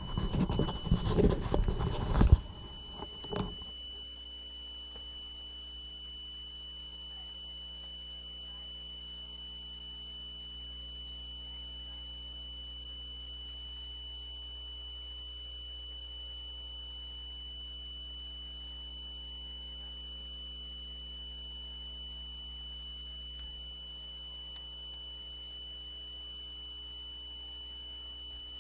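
A steady, slightly flat 3 kHz test tone from an 8-track test tape playing on a high-end Akai deck with its original AC motor, over a low mains hum; the tone sits at about 2977 Hz, the sign that the deck runs about 0.77% slow. Some knocks and rustling in the first three seconds.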